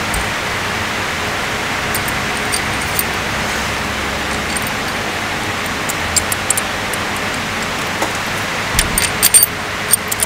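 Light metallic clicks and clinks of injector clamp bolts and washers being handled and set in place by hand on a diesel cylinder head, with a cluster of them near the end, over a steady background hiss.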